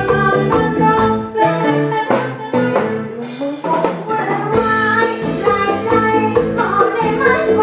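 A woman singing a Thai luk thung song into a microphone, over band accompaniment with brass and a steady drum beat.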